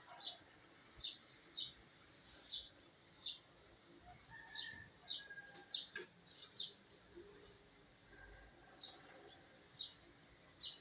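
A small bird chirping faintly, in short high single notes about once or twice a second.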